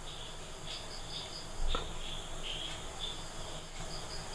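Crickets chirping in short high-pitched pulses, with a single light knock about a second and a half in.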